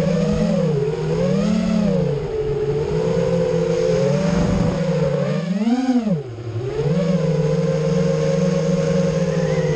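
FPV quadcopter's motors and propellers whining as heard from its onboard camera, the pitch rising and falling with the throttle. About six seconds in, a sharp punch of throttle swings the pitch up to a peak and then down, with a brief drop in level, before it settles back to a steady cruise.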